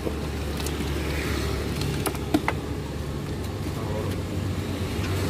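Steady low rumble of road traffic passing close by, with a few short metal clinks about two seconds in.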